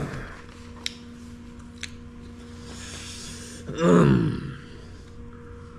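A man's voice making one long wordless hum that falls in pitch about four seconds in, a puzzled reaction while tasting food. Beneath it runs a steady low electrical hum, with a couple of light clicks early on.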